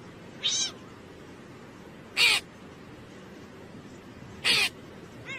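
Cat meowing in short, sharp calls, three loud meows about two seconds apart and a fainter one near the end.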